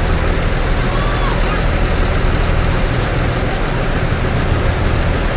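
A bus's heavy diesel engine idling steadily with a low hum, and faint voices in the background.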